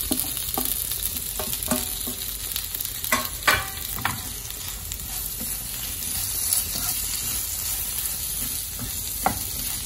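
Boiled potato chunks being stirred into sizzling fried onion masala in a nonstick frying pan with a plastic slotted spoon. The oil hisses steadily, and the spoon knocks and scrapes against the pan now and then, loudest about three seconds in.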